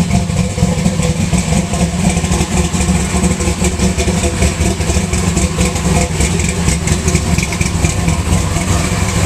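427 cubic-inch V8 car engine idling steadily.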